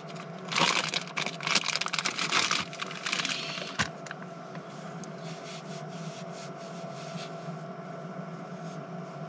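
Plastic wet-wipe packet crinkling and rustling as wipes are pulled out, for the first few seconds, with a sharp click near four seconds in. After that only a steady hum remains.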